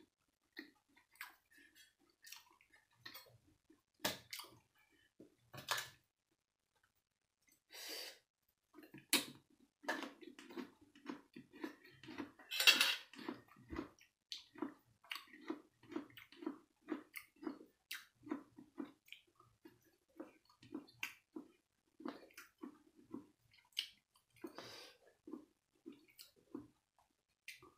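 Close-up mouth sounds of a person eating: wet smacking clicks, then steady chewing at about one and a half chews a second, with one louder wet mouth noise about halfway through.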